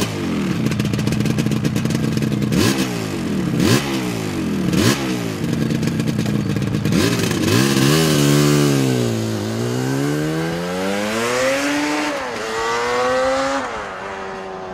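Motorcycle engine accelerating hard, its pitch climbing and then dropping sharply three times in quick succession as it shifts up through the gears. The note then sinks and rises slowly, drops once more near the end and falls away.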